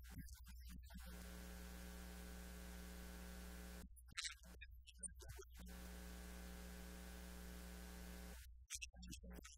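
Steady electrical mains hum with a low buzz in the recording chain. It cuts out twice for a second or two, about four seconds in and again near the end, with a few faint high ticks in the gaps.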